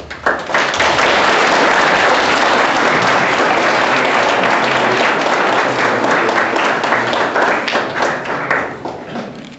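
Audience applauding, starting suddenly and dying away near the end into a few scattered claps.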